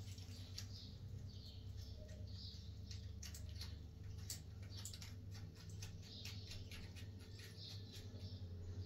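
Faint, irregular small clicks and taps from a chrome shower mixer and its metal fittings being handled and fitted to the wall, over a low steady hum.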